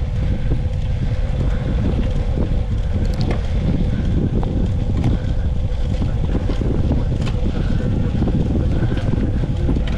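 Wind buffeting the microphone: a loud, steady low rumble, with a faint steady tone and a few faint ticks in the background.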